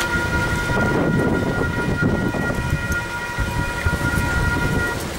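A level crossing's electronic warning alarm sounds as a steady, unchanging multi-note tone while the barrier arms rise, then cuts off about five seconds in. Under it runs the rumble of an electric train passing on the line.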